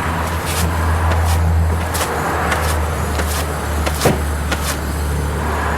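A 2001 Buick LeSabre's wheel turning on its hub bearing as it is spun by hand, grinding, with a regular tick about every two-thirds of a second over a steady low hum. The grinding is the sign of a wheel bearing assembly in the early stages of going bad.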